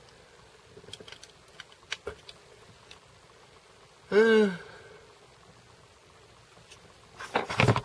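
A man's short wordless vocal sound, held for about half a second, about four seconds in. Around it are light clicks and bumps from a handheld camera being repositioned, with a louder clatter of handling near the end.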